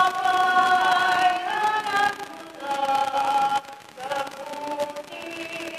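Church choir singing the offertory hymn of a Mass in slow, held notes.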